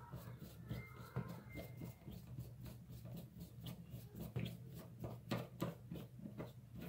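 Phillips screwdriver turning a screw into a faucet cartridge's red plastic cap: a run of small irregular clicks and creaks that grows denser about halfway through, over a faint low steady hum.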